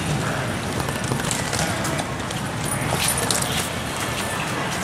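Busy railway station concourse ambience: a crowd walking, with many footsteps and scattered sharp clicks, mostly between one and three and a half seconds in, over a steady noise of indistinct voices.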